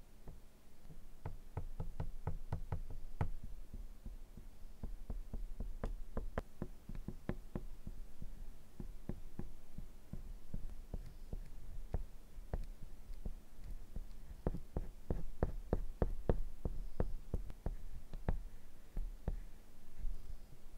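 Oil pastel stick dabbed and stroked in short quick marks on drawing paper: a series of light clicks and taps, coming in fast runs of about five or six a second, over a low steady hum.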